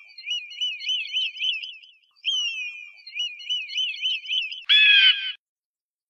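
Bald eagle calling: two runs of quick, high, falling piping notes, about five a second, then one short, louder harsh call about five seconds in.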